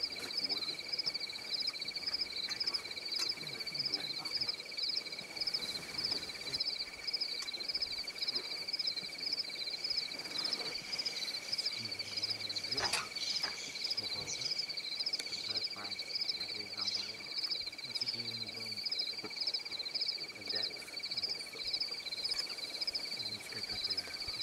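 Evening insect chorus in the bush: a high, rapidly pulsing trill with a steady high-pitched whine beneath it, going on without a break.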